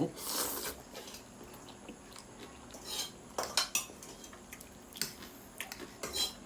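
Cutlery clinking and scraping against a dish during eating, in several separate clicks spread over a few seconds.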